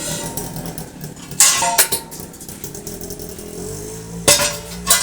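A few sharp clinks and clatters, like metal or dishes being handled, in two short groups over a low steady rumble.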